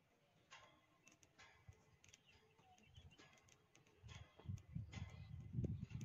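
Faint outdoor ambience of short chirps repeating about once a second. From about four seconds in, wind rumbles on the microphone.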